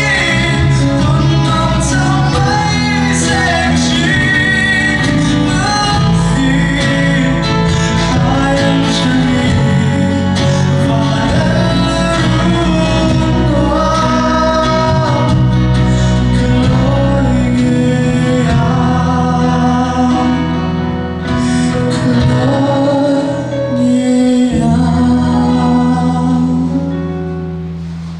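Recorded song with singing over instrumental backing, fading out near the end.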